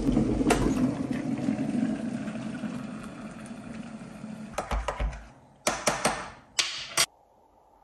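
Hot water poured from an electric kettle into a mug: a rushing splash that fades away over several seconds, then two short, loud noisy bursts near the end.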